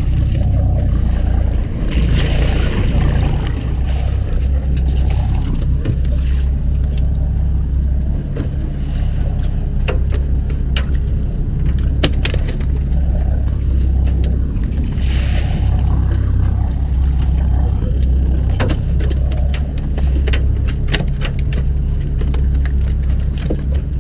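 A fishing boat's engine running steadily with a deep drone, with scattered clicks and knocks and a couple of brief hissing rushes about two and fifteen seconds in.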